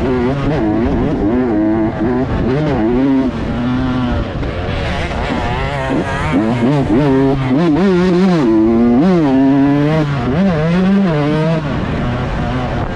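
125 cc two-stroke motocross bike engine revving hard, its pitch rising and falling over and over as the throttle is opened and closed.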